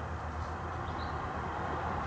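Steady road-traffic noise from a bypass on a flyover, with a low drone underneath and a few faint bird chirps.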